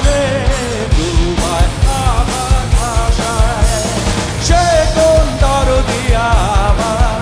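Live rock band playing: electric guitars, bass guitar and a drum kit keeping a steady beat, with a bending, wavering lead melody over the top.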